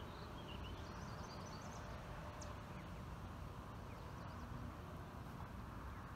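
Quiet lakeshore ambience: a steady low rush of wind and rippling water, with a few faint high chirps in the first couple of seconds.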